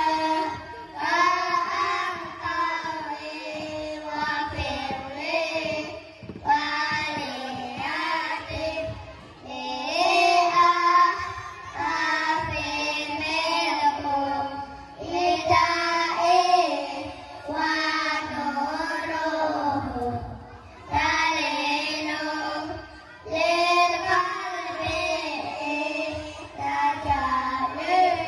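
A group of children chanting a melodic recitation in unison, in phrases of a couple of seconds with short breaks between them.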